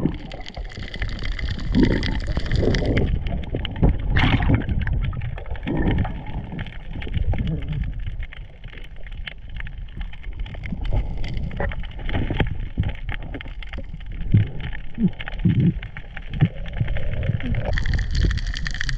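Muffled underwater noise picked up by a camera in a waterproof housing: a dull rush of water with irregular low thumps and knocks as the diver moves along the bottom.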